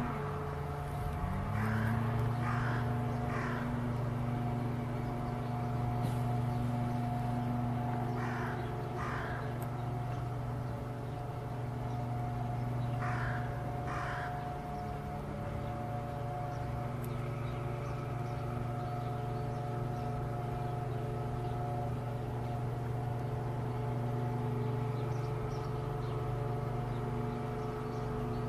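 A bird gives harsh calls in short runs of two or three, three times over, above a steady low hum.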